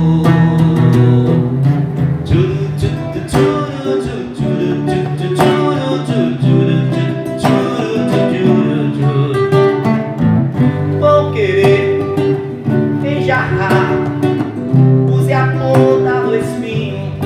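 Instrumental passage of a live MPB song: acoustic guitar strummed in a steady rhythm, with sustained backing notes.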